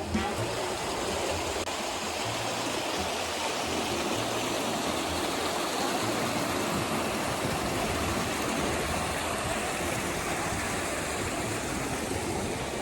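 Steady rush of flowing water from a forest stream, an even wash of noise with no pauses.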